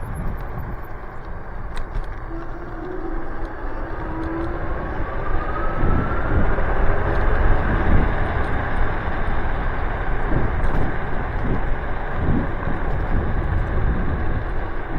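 Electric scooter riding at speed, with rushing wind and road noise. About two seconds in, a faint motor whine rises in pitch for a few seconds as the scooter accelerates, and the noise grows louder.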